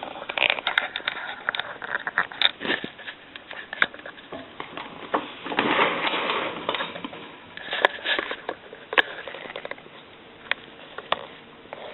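Handling noises of a heavy payphone being pushed back across a bench: scattered knocks and clicks, with a longer scrape about six seconds in.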